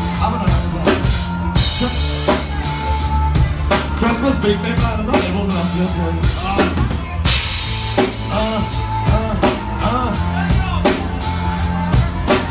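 Loud live band music: a drum kit playing a steady beat with kick and snare over a low bass line, and a singer on a microphone.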